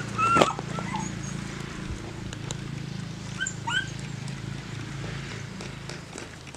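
Dogs giving short high yelps: a loud one about half a second in, then two quick rising ones around three and a half seconds in, over a steady low hum.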